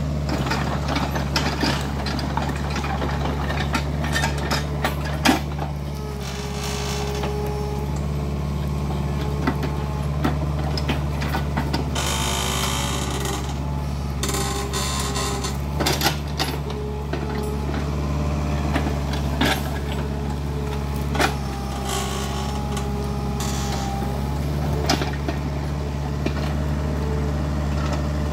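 Kubota mini excavator's diesel engine running steadily under load while clearing forest, with frequent sharp knocks and cracks from the machine and the wood it works, and a brief rush of noise about twelve seconds in.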